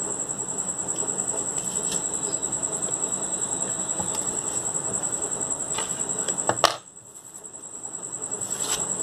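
Rustling and scraping as the plastic-decorated wall clock is handled and moved on a table, with a sharp click about two-thirds of the way through, after which the noise falls away briefly. A thin, high pulsing tone runs steadily underneath.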